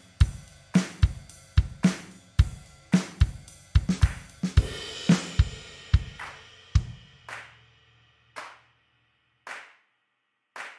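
Outro music: a drum-kit beat with kick, snare and cymbals. The steady beat thins out after about seven seconds to a few isolated hits with silence between them.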